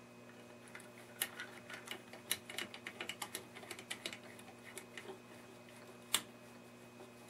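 Small metal clicks and taps, coming quickly and irregularly, as the mounting hardware of new wirewound power resistors is handled and fastened on the set's chassis, with one louder click about six seconds in.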